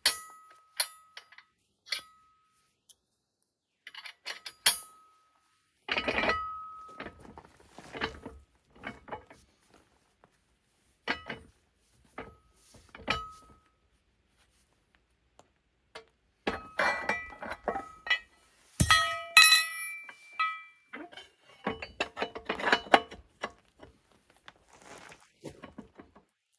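Steel parts knocking and clinking together, each hit ringing briefly, in scattered bursts with silent gaps between them.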